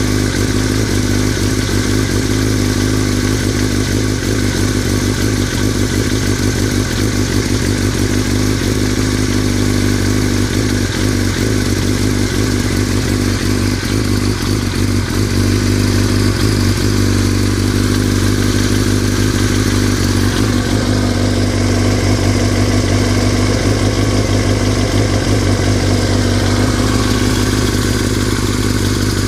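2003 Yamaha R6's 600cc inline-four engine running steadily at idle with a rattle, which the owner is unsure is normal.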